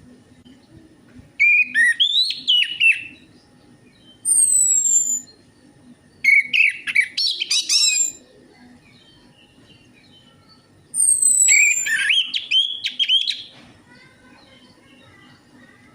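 Orange-headed thrush (anis merah) singing in four separate bursts of varied chirping phrases, some opening with a thin high whistle that slides downward.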